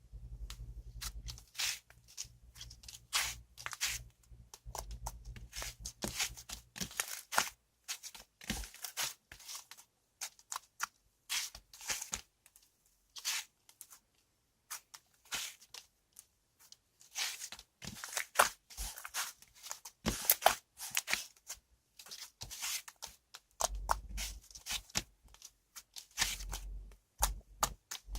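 Cloud slime being stretched, squeezed and pulled apart by hand, giving irregular runs of small crackles and tearing clicks with short pauses between handfuls.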